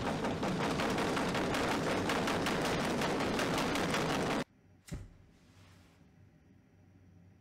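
Loud rumbling noise thick with rapid crackles, which cuts off suddenly about four and a half seconds in. Half a second later comes a single sharp click with a short hiss, then only faint quiet.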